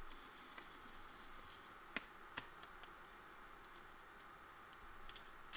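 Faint handling of masking tape and a chipboard cover, with a couple of sharp small clicks about two seconds in and a few fainter ticks after.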